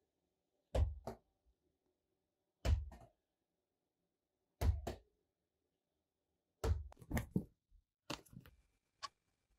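Heavy thuds about every two seconds, each followed a moment later by a lighter second hit, then a quicker flurry of knocks. Near the end a clock starts ticking once a second.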